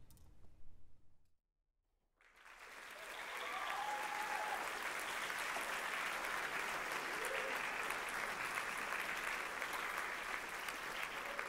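Audience applauding in a concert hall. After a brief silence, the applause begins about two seconds in, builds within a second or so, and then carries on as steady clapping.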